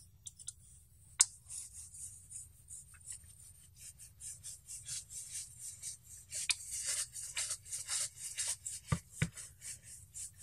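Hex driver turning the last screw into a standoff on a carbon-fibre FPV racing-quad frame: a run of small, quick scraping ticks that grows busier after about four seconds, with a sharp click about a second in and two sharper knocks close together near the end.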